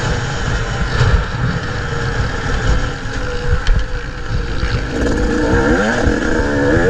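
125cc motocross bike engine on the throttle, running low and fairly steady for the first few seconds under wind noise on the microphone, then revving up again in rising sweeps about five seconds in.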